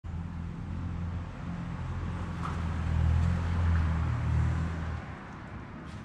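A low, steady engine hum, loudest in the middle, that cuts off abruptly about five seconds in.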